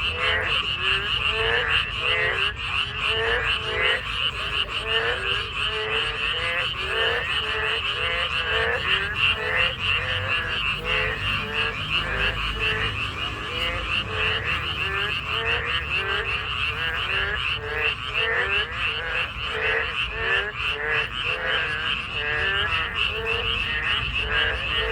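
Chorus of frogs, Boreal digging frogs (Korean maengkkongi) among them, calling continuously in many overlapping, rapidly repeated croaks.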